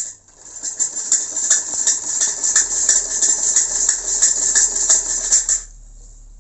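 Hand-cranked sewing machine stitching: a fast, even mechanical clatter that starts about half a second in and stops suddenly near the end.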